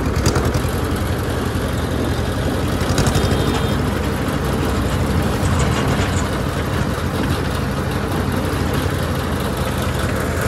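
Diesel tractor engine running steadily as the tractor drives along a road, a continuous low hum.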